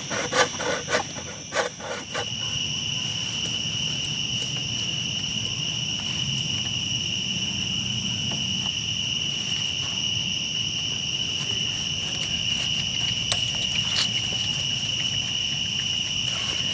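Night insect chorus: a steady high-pitched trill that comes in about two seconds in, with a fainter, higher insect pulsing on and off above it. Before it come a couple of seconds of quick rhythmic strokes, and a few light ticks come later.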